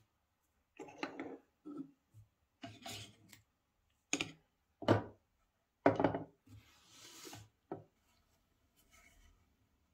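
Product packaging being handled and opened: a series of scrapes, rubs and knocks of cardboard and plastic, the loudest about six seconds in, followed by a longer sliding rub.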